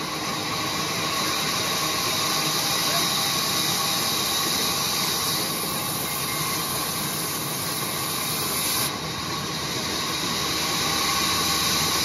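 Large sawmill band saw running steadily while a mango wood slab is fed through the blade, with a constant whirring, rasping cutting noise. The noise dips slightly about nine seconds in.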